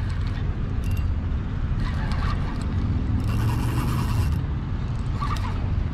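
Spinning reel working against a hooked pompano. A rasping mechanical whir starts about three seconds in and lasts about a second, over a steady low rumble.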